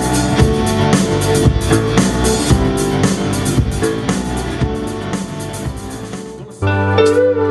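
Live band playing an instrumental stretch with electric guitar, bass guitar and drum kit, no singing. About six and a half seconds in the music cuts abruptly to a different, softer passage with long held bass notes and no drum hits.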